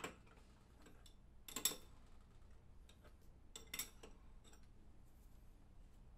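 A few metal clicks and clinks as a 13/16 wrench is worked on the metal cap of a water welder's booster block to unscrew it, the two sharpest about one and a half and nearly four seconds in.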